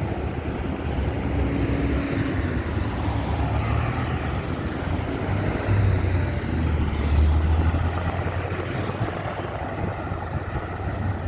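Road traffic at a busy roundabout: steady car and truck engine and tyre noise, with a vehicle's low engine note swelling and loudest about seven seconds in.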